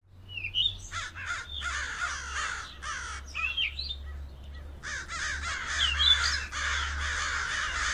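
Several crows cawing over and over in overlapping calls, with a few higher rising calls, over a steady low hum.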